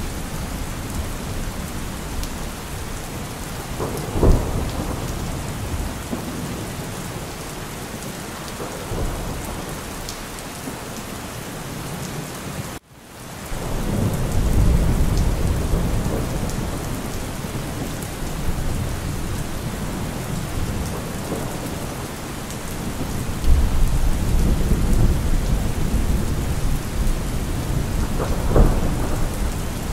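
A thunderstorm: steady rain with low thunder rumbling, swelling again after the sound cuts out for an instant near the middle, and louder toward the end. There are a couple of sharp cracks, one about four seconds in and one near the end.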